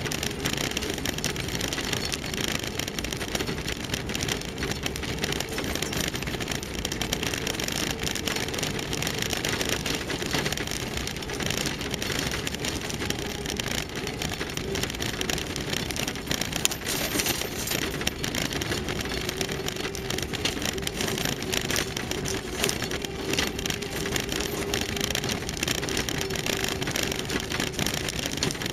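Land Rover Series III driving slowly along a rough gravel track: a steady engine note under a constant crackle and rattle from the tyres on loose stones and the vehicle body.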